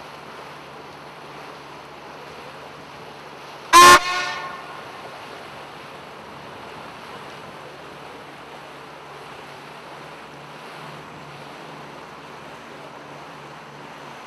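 A boat's horn gives one short, very loud blast about four seconds in, over the steady drone of the boat's engine and water noise.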